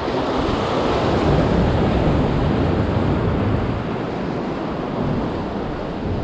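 Ocean surf washing over and around jetty rocks, with wind on the microphone; the wash swells about a second in and eases a little later.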